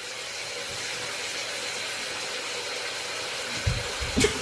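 Steady hiss of background noise, with a few low thumps near the end.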